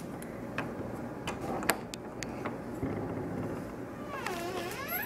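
A wooden door being eased open, with a few sharp clicks and taps, the loudest about halfway through. Near the end comes a short wavering pitched sound that dips and then rises.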